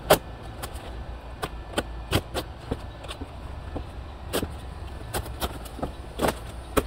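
Thick cardboard of a large shipping box being pulled open and bent back by hand: irregular cracks, crinkles and dull knocks, the sharpest just after the start and shortly before the end.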